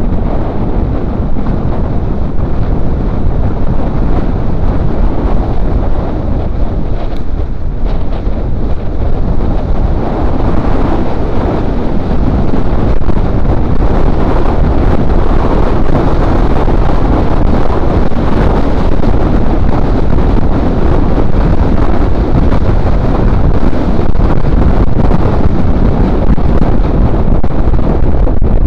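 Heavy wind noise buffeting the microphone of a camera on a moving bicycle, a steady rush that grows louder about twelve seconds in as the speed picks up.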